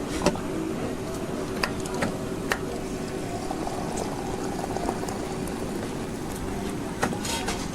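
Water running steadily into a container, with a few light clicks over the top.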